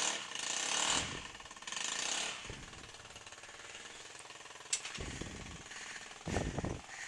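Yamaha Vino scooter engine running with a rapid rattling exhaust note, swelling louder twice in the first couple of seconds and then settling lower. It is super loud, which the owner puts down to the muffler having been taken off.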